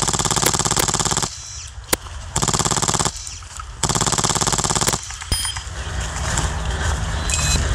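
HPA-powered airsoft Stoner 96 light machine gun (Classic Army replica with a Polarstar engine) firing three full-auto bursts, the first the longest, separated by short pauses.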